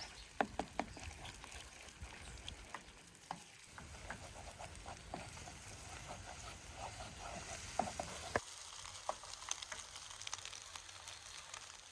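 Food frying in a pan, a steady sizzle with scattered sharp crackles and pops.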